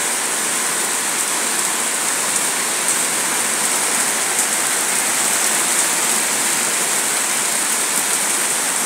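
Heavy downpour mixed with hail falling on corrugated roofing, a steady dense hiss of rain with a few sharper single hits scattered through it.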